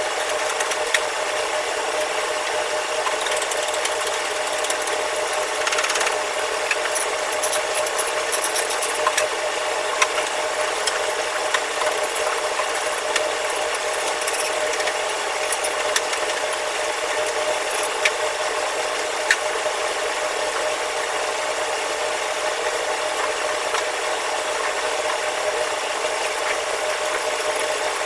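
Steady machine hum with a constant tone, with scattered light clicks and knocks of hand tools on a commercial gas range's steel burner parts.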